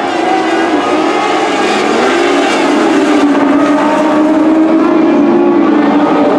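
Several Lightning Sprint race cars with 600cc motorcycle engines running at speed around a dirt oval, their engine pitches bending as the cars pass, with one engine settling to a steady tone about two seconds in.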